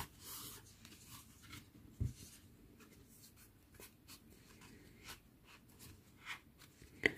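Faint scratchy rustling and light clicks of a needle and yarn being worked through a crocheted amigurumi piece, with a small knock about two seconds in.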